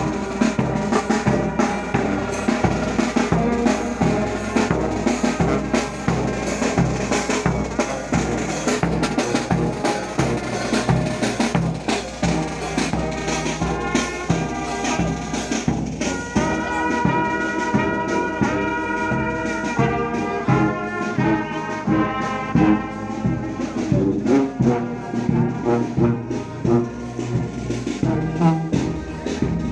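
Marching brass band playing: trombones, trumpets, tubas and a sousaphone over a steady drum beat. About halfway through, the brass holds long chords.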